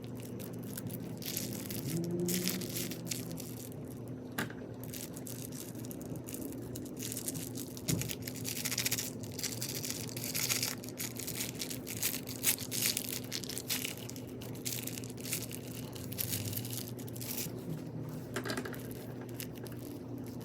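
Crunchy slime overloaded with plastic beads being squeezed and pressed by hand, giving dense, irregular crackling crunches.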